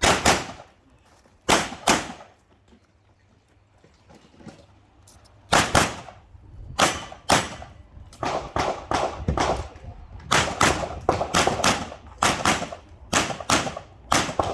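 Pistol shots fired in quick pairs, with a pause of a few seconds after the first two pairs, then a faster string of shots over the last six seconds: a practical-shooting course of fire.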